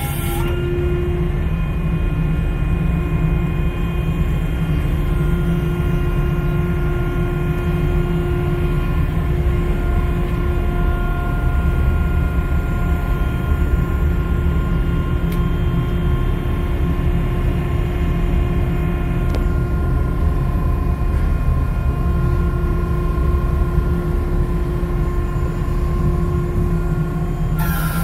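Electro-hydraulic power pack of a rescue boat davit running steadily under load, a low rumble with a constant hum, while the davit arm swings out over the ship's side.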